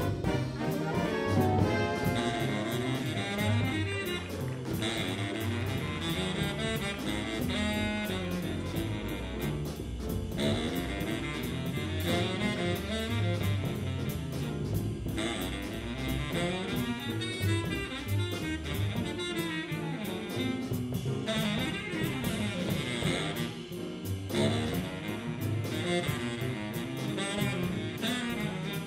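Live big-band jazz: a baritone saxophone solo over the band's rhythm section of drum kit, upright bass and piano, with brass behind it.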